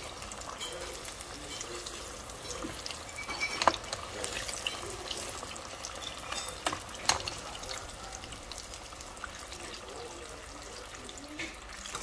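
Battered cauliflower pieces deep-frying in a pot of oil: a steady sizzling hiss full of small crackles and pops, with two sharper clicks partway through.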